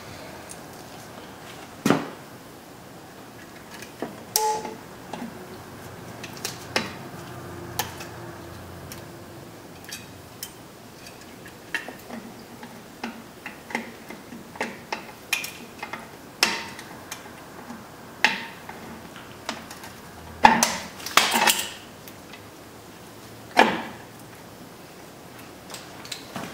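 Irregular metallic clicks and clinks of steel drum brake shoes, springs and adjuster hardware being fitted by hand to the backing plate of a 1996 Chevy Tahoe's rear drum brake, with a quick run of louder clanks about two-thirds of the way through.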